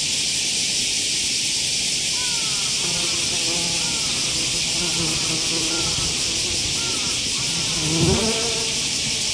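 A flying wasp buzzing low over sand, its wing hum wavering in pitch as it hovers and darts about, growing loudest in a brief rising swell about eight seconds in as it passes close. A steady high hiss runs underneath.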